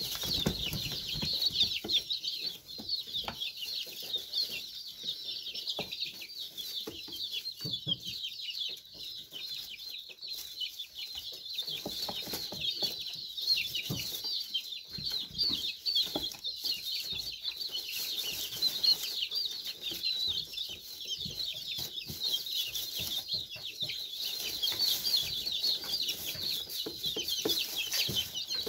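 A flock of young chickens (growing chicks) peeping continuously: many short, high chirps overlapping without a break.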